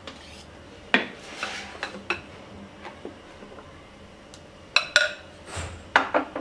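A utensil clicking and scraping against a mixing bowl while beaten egg whites are folded into pancake batter. There are a few sharp knocks about a second and two seconds in and a cluster of them near the end, with soft stirring between.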